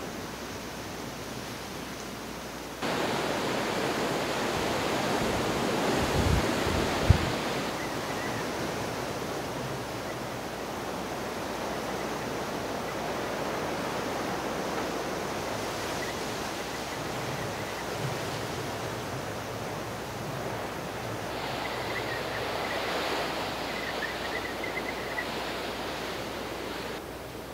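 Storm-force wind gusting through trees and hedge leaves, a steady rushing roar that gets suddenly louder about three seconds in. A few low thumps of wind buffeting the microphone come around six to seven seconds in.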